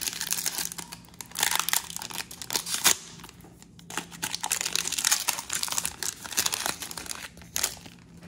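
Foil trading-card pack wrapper being torn open and crinkled by hand, in uneven bursts of crinkling with one sharp snap about three seconds in.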